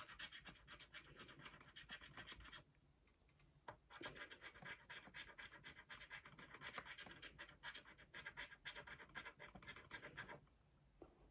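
A scratch-off lottery ticket being scratched off in quick, rapid strokes, faint, in two spells: about two and a half seconds of scratching, a short pause, then about six seconds more.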